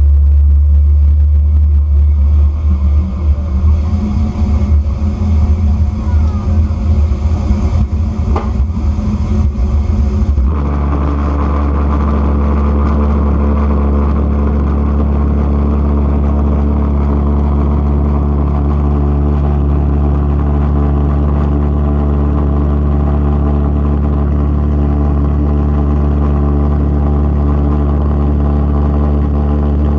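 Propane-fuelled pulsejet engine on a go-kart running loudly with a deep, buzzing drone. For the first ten seconds or so it runs rough and fluttering, then changes abruptly into a steady, even drone.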